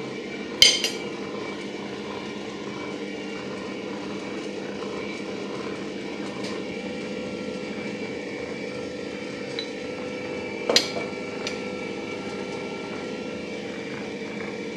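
Stand mixer running steadily at a low speed, its motor humming as it mixes batter in a glass bowl. A metal spoon clinks sharply against the glass bowl about a second in and again near eleven seconds, with a few lighter taps between, as flour is spooned in.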